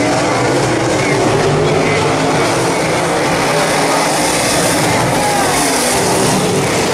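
Several dirt late model race cars' V8 engines running hard at race speed, a loud, steady racket that rises and falls in pitch as the cars pass.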